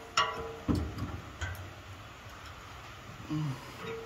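Steel combination wrench clinking against a nut on the chipper drum as its box end is fitted, pulled and refitted to undo the nut: a few sharp metallic clicks, some with a brief ring, mostly in the first second and a half.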